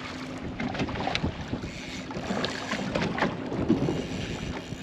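Wind buffeting the microphone and water slapping against the hull of a small boat, with faint voices in the background.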